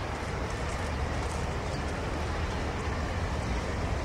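City street ambience: a steady low traffic rumble with the voices of passers-by.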